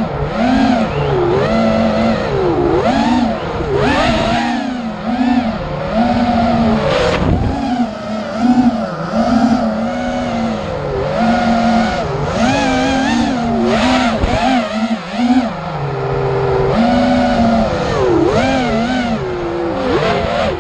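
Racing miniquad's brushless motors whining, their pitch rising and falling over and over as the throttle is worked through the course.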